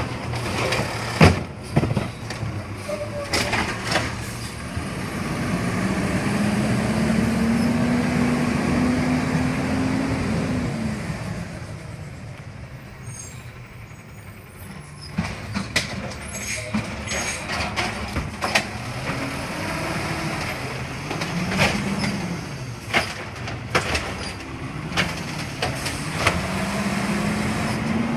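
Automated side-loader garbage truck at work: its diesel engine revs up and falls back several times, one long rise and fall then two shorter ones, as it drives from cart to cart and powers the lifting arm. Scattered sharp clanks and knocks come from the arm and the plastic carts.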